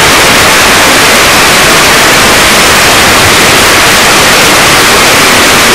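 Steady, loud hiss like static, with no voices or other events while the crowd keeps a minute of silence.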